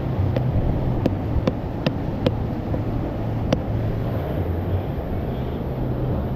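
Sharp metallic clinks, about six of them, irregularly spaced over the first three and a half seconds, as metal pieces are knocked together. A steady low rumble runs underneath.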